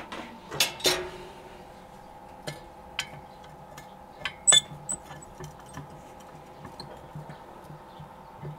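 Metal clinks and knocks of a cast-iron Dutch oven lid being handled and lifted off to check the food: a string of sharp separate strikes, the loudest about halfway through with a brief ring.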